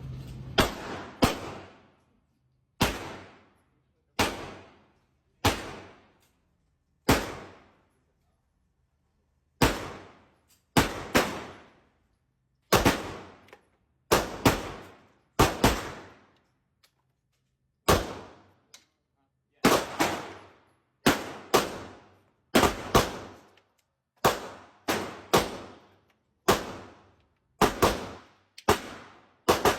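Gunshots at a shooting range: about thirty single shots at an uneven pace, some fired in quick pairs, each with a short ringing tail that fades within a second.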